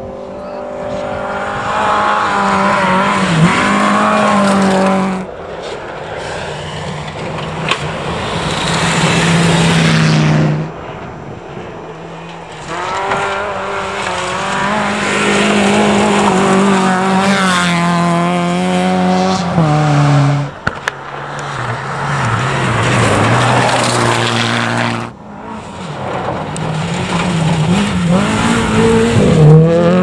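Rally cars driven hard on a gravel stage. Their engines rev high and drop back at each gear change as the cars approach and pass. The sound changes abruptly several times, from one car to the next.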